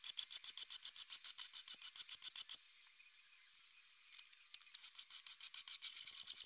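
Hand file rasping on the aluminium backstrap of a Beretta 92FS frame, in quick short strokes, about eight a second, rounding off the edges. The strokes stop for about a second and a half, then start again and grow denser and louder near the end.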